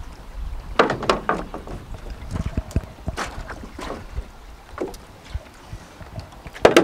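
A racing kayak's hull and paddle knocking and bumping against a floating pontoon as the paddler climbs out, several knocks with the loudest near the end, over wind rumbling on the microphone.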